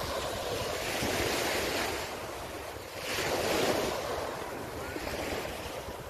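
Small ocean waves breaking and washing up a sandy beach, in two surges, the second about three seconds in and louder. Some wind buffets the microphone.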